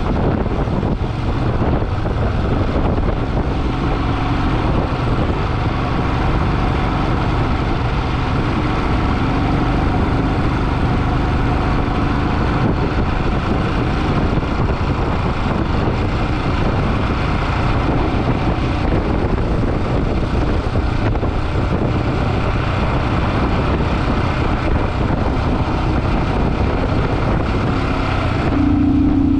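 Motorcycle riding on the road: steady engine running under heavy wind rushing over the microphone. Near the end a loud, steady low tone joins in.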